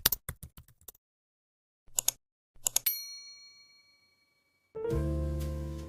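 Fast keyboard-like typing clicks that stop about a second in, a few more clicks, then a single bell-like ding that rings out and fades over about a second and a half. Music with a steady low beat starts near the end.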